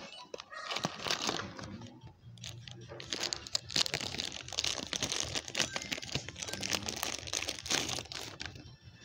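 Thin clear plastic bag crinkling and crackling as hands open it and pull out a small plastic toy figure. The crackling is densest through the middle and fades near the end.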